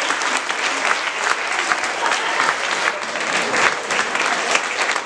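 Audience clapping steadily, a dense crackle of many hands.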